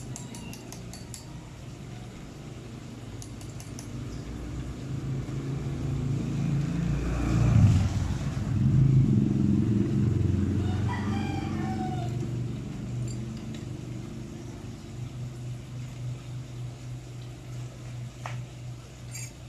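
Low rumble of a passing vehicle swelling and fading through the middle, the loudest sound. Just after it a rooster crows once, and a few light metallic clicks come at the very start.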